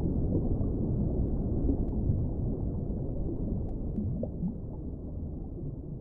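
Deep underwater rumble with faint whale calls, a few rising in pitch about four seconds in, and a couple of faint drip clicks; the whole sound slowly fades.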